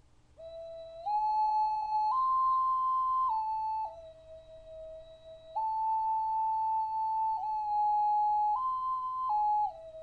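Ocelot-shaped ocarina blown in long, held notes, stepping up and down among three or four pitches with a pure, flute-like tone.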